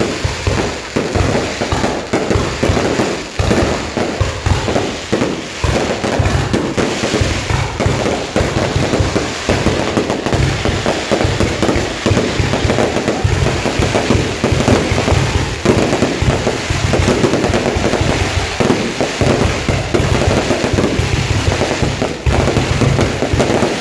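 Dense, continuous crackling and popping with a low rumble underneath, steady in loudness throughout.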